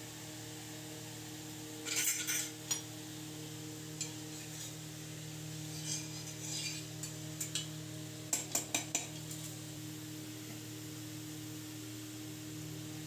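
A steel spoon and steel cookware clinking and scraping in short, scattered bursts, ending in a quick run of four sharp clicks, over a steady low electrical hum.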